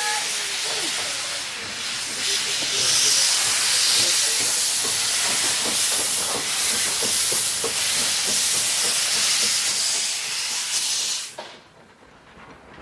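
Steam tank locomotive letting off steam with a loud, steady hiss, which cuts off abruptly near the end.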